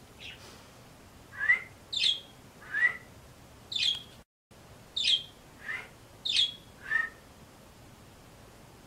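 Pet bird singing: a series of about eight short, sharp chirps, each falling in pitch, alternating between higher and lower notes about half a second to a second apart.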